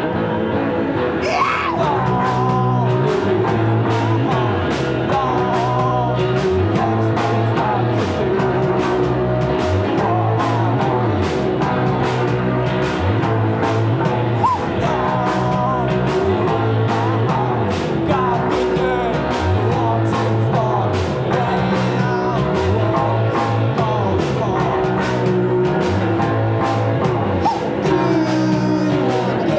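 Live rock band playing: electric bass repeating a figure under an electric guitar and a steady drum beat, with a voice singing over them.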